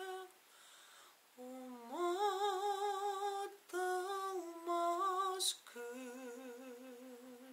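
A man singing a cappella in a soft voice, with no accompaniment: after a short pause, a slow melodic phrase of held notes with vibrato, ending on a quieter long held note.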